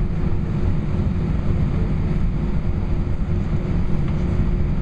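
Steady low rumble inside the cabin of an Airbus A320 with its engines running at low power on the ground, before the take-off roll, with a faint steady hum over it.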